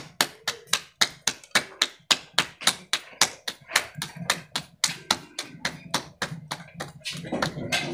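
Hands slapping a ball of roti dough back and forth between the palms to flatten it, in a quick steady rhythm of about four to five pats a second.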